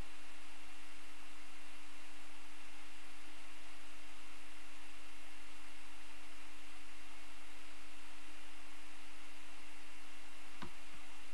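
Steady electrical hum with a constant high-pitched whine over hiss, the background noise of the recording. A single click near the end.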